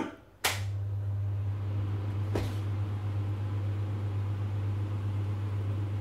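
Homemade air conditioner built from refrigeration parts being switched on: a sharp click about half a second in, then the unit starts and runs with a steady low hum. A fainter click comes about two seconds later.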